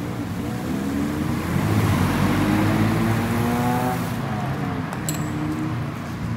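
Street traffic with a motor vehicle passing close by. Its engine noise swells to a peak about two to three seconds in, then falls in pitch and fades.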